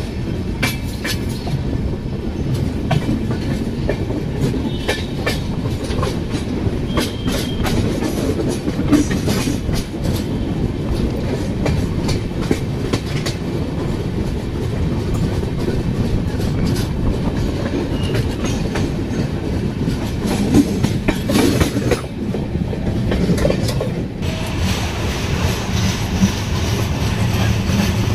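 Pushpak Express passenger train running along the track, heard from on board: a steady rumble with wheels clicking over the rail joints. About three-quarters of the way through, a brighter hiss and a steady low hum come in.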